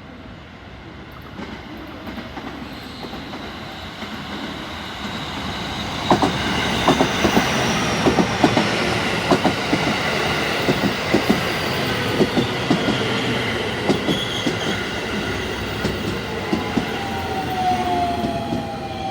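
JR West electric commuter train running through the station: the rumble builds for several seconds, then the wheels click rhythmically over rail joints as the cars go by, with a steady high whine above and a tone falling in pitch near the end.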